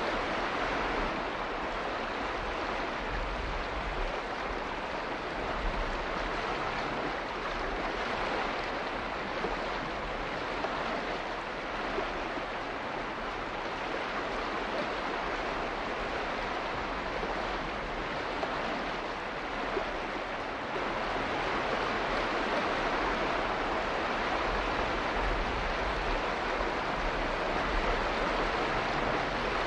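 Steady rushing of flowing water: an even hiss with no separate drops, splashes or tones, getting a little louder about two-thirds of the way through.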